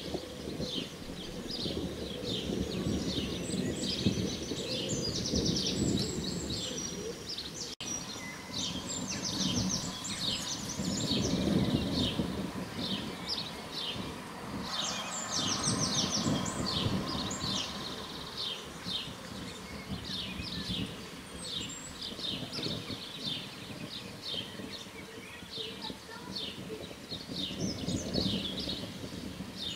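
Several songbirds singing and chirping in quick, overlapping phrases, over a low, uneven rumble that swells about a third of the way in.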